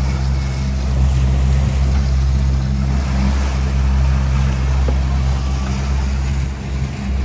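Brand-new boat motor running at idle during its break-in, a steady low hum, with water and wind noise over it.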